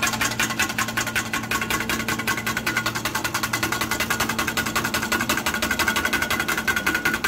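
Cream being whipped in a stainless steel bowl with a wire whisk: a fast, even rattle of the whisk wires against the metal bowl, over a steady hum.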